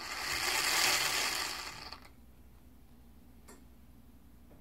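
A small electric drive mechanism on a model tank whirring for about two seconds, swelling and then dying away.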